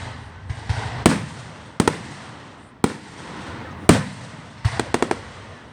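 Fireworks going off: a series of sharp bangs roughly a second apart, with a quick run of crackling pops near the end.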